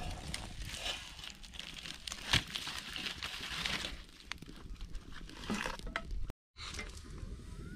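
Dry twigs and leaves crackling and rustling as a wood fire catches in a clay stove: many small sharp snaps over a dry rustle, briefly cutting out about six seconds in.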